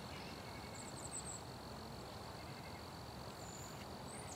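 Insects, likely crickets, trilling in one steady high-pitched note. A few short high chirps come about a second in and again near the end.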